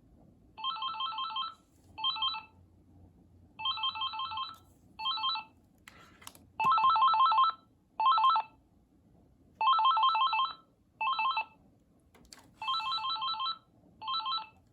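AT&T cordless phone handset ringing with a warbling electronic ringtone, sounding a long ring then a short one, five times about every three seconds, for a call being transferred between handsets. A couple of faint handling clicks fall between the rings.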